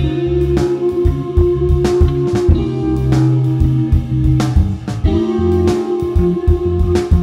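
Rock band music with no singing: a guitar holds long sustained notes over a steady drum beat.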